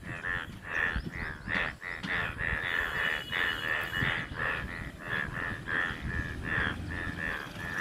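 A breeding chorus of Indian bullfrogs, males turned yellow, calling together after rain. Many overlapping short croaks repeat about two or three times a second without a break.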